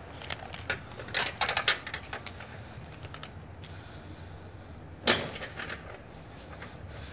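A door being opened, with a run of clicks and rattles, then shut with a single sharp bang about five seconds in. A steady low hum runs underneath.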